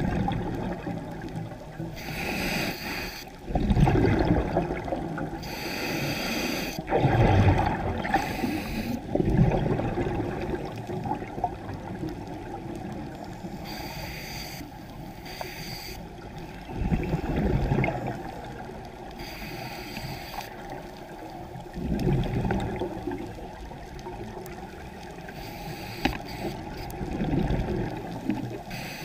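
Scuba diver breathing through a regulator underwater: a hiss on each inhalation, then a bubbling burst of exhaled air, repeating every few seconds.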